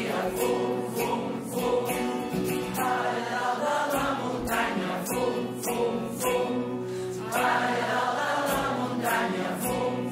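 A large community group of mostly older singers singing a song together in chorus, many voices holding long notes.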